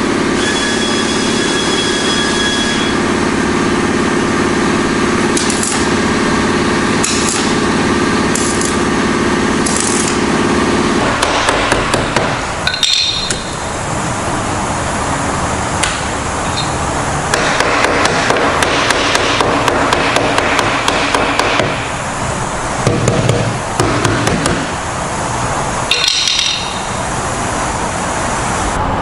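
Stud-welder dent pulling on a steel car door: a steady hum for about the first eleven seconds, then many sharp metallic taps and clicks, quickest between about seventeen and twenty-two seconds in, as the welded pin is gripped and the dent is pulled and worked.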